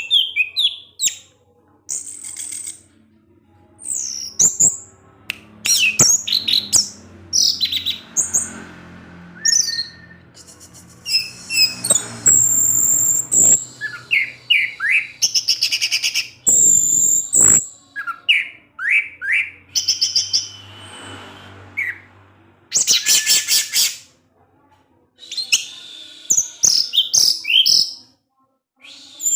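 Orange-headed thrush singing in quick strings of short, sharp, high chirping notes broken by several rapid buzzy trills, with brief pauses between phrases.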